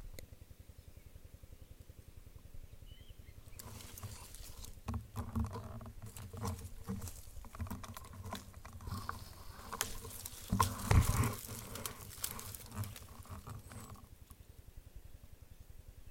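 Irregular rustling and crackling with soft knocks, starting a few seconds in and stopping a couple of seconds before the end, loudest a little past the middle.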